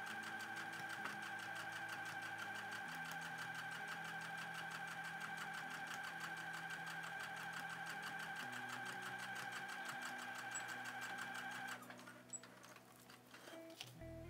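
Electric sewing machine stitching a seam through padded, quilted fabric: a fast, even run of needle strokes over a steady whine, stopping abruptly about twelve seconds in. A few light clicks follow as the work is handled.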